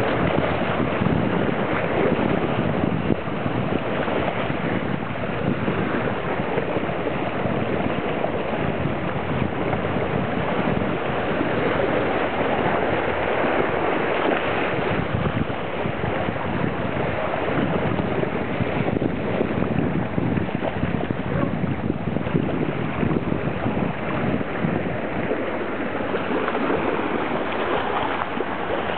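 Small ocean waves washing and splashing over a rocky shoreline, a steady rushing wash that never pauses.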